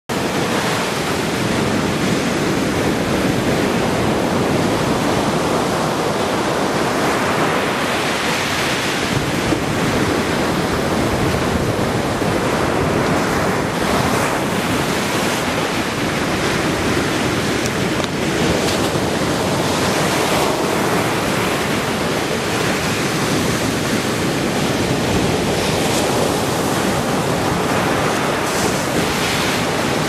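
Ocean surf breaking and washing up onto a sandy beach: a continuous rush of waves that swells and eases every few seconds as each wave comes in.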